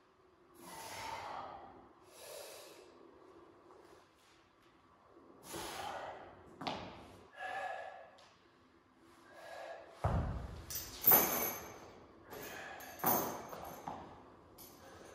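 Heavy, hard breathing after a set of weighted pull-ups, several loud exhales in the first half. About ten seconds in, a heavy kettlebell is set down on the gym floor with a thud, then the chain of the dipping belt clinks sharply a few times.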